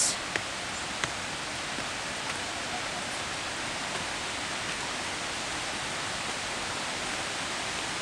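Steady, even rush of a mountain river and waterfall in a gorge, with a couple of faint short knocks in the first second.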